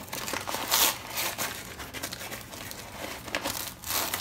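A measuring cup scooping granulated sugar out of its bag: the bag crinkles and the sugar rustles, loudest about a second in and again near the end.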